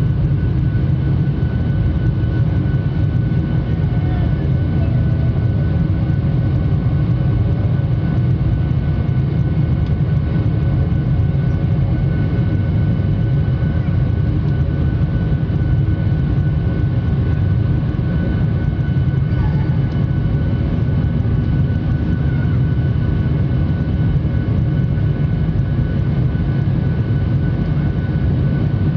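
Steady low rumble of a jet airliner's engines and airflow heard from inside the passenger cabin, holding at an even level.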